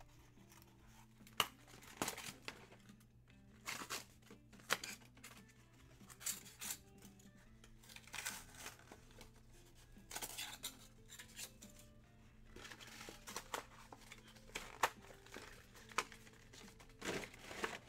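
Trading-card box packaging being opened by hand: irregular tearing, crinkling and scraping of wrapper and cardboard, in many short strokes, over faint background music.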